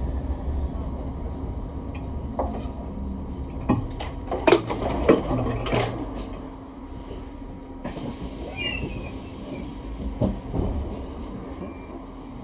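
Double-decker bus heard from inside: a steady low rumble with a constant hum, and a cluster of loud knocks and rattles about four to six seconds in, after which the rumble settles quieter.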